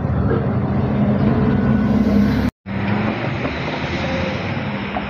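Engine of an Iveco articulated city bus pulling past close by, a steady low hum that swells. About two and a half seconds in it cuts off abruptly to the broad noise of street traffic at a junction.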